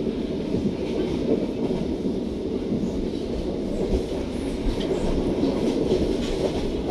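Steady low rumble of a moving passenger train heard from inside the coach: the wheels running on the rails and the carriage body resonating, with no other sound standing out.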